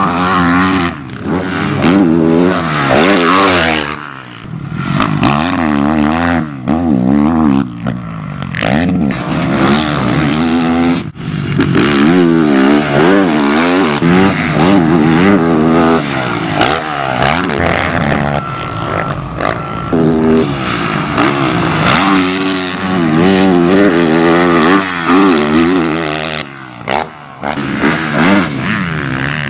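Yamaha YZ450F motocross bike's single-cylinder four-stroke engine ridden hard, its pitch repeatedly rising and falling with throttle and gear changes. The engine note drops away briefly a few times as the throttle is shut, once near the end.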